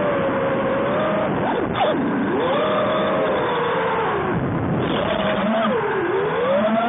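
QAV250 racing quadcopter's brushless motors and propellers whining, the pitch rising and falling with the throttle. The pitch drops sharply and climbs back about two seconds in, then sags and climbs again near the end.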